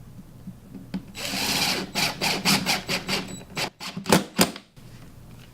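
Power drill driving a black screw through the cabinet back into the half-inch plywood box. It runs steadily for about a second, then in a quick series of short trigger pulses as the screw seats, stopping short of overtightening.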